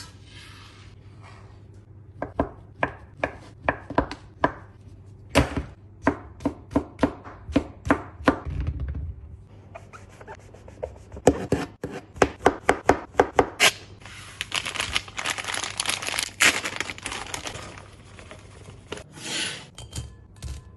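Knife chopping food on a cutting board in quick runs of sharp strikes, about two to three a second, then faster, followed by a few seconds of continuous noisy handling.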